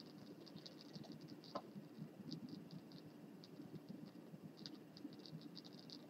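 Near silence: faint room tone with light, quick clicking in a few short runs.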